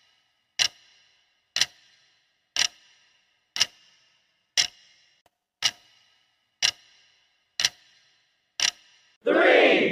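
Countdown-timer tick sound effect: one sharp clock-like tick each second, nine ticks in all. Just before the end a loud burst of shouting voices cuts in.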